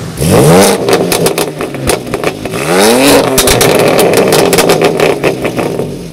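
BMW M4's twin-turbo straight-six being blipped twice from idle, the pitch rising sharply each time, with the exhaust crackling and popping on the overrun as the revs fall.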